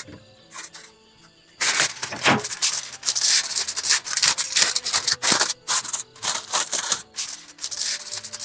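Aluminium foil crinkling and rustling as it is handled around food, loud and dense from about a second and a half in, over soft background music.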